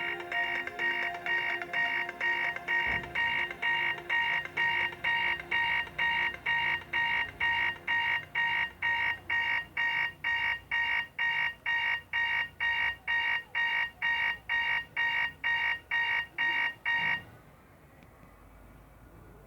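BlackBerry 9790 ringtone played through the phone's speaker: high electronic beeps pulsing about twice a second. Some lower notes sound under them for the first few seconds, and the ringtone stops abruptly about 17 seconds in.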